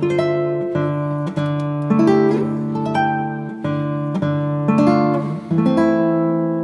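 Background music: acoustic guitar playing a melody of picked notes over chords, each note ringing on.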